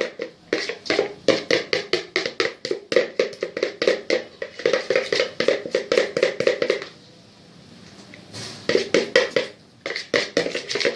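Spoon stirring a slime mixture in a deep bowl: a fast, regular clicking of strokes, about five or six a second, that stops for about two seconds near the end and then starts again.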